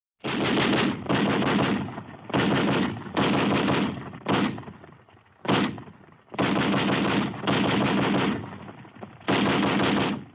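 Machine-gun fire sound effect: about nine bursts of automatic fire, most lasting half a second to a second, with short gaps between them.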